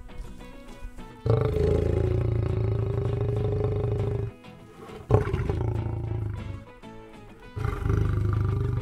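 An agitated male lion roaring at close range in three long, deep bouts, the second starting with a sudden burst about five seconds in.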